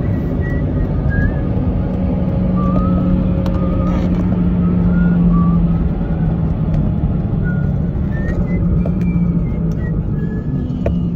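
Steady road and engine noise of a moving car heard from inside the cabin, with a low drone through most of it. Faint short wavering high notes come and go over it.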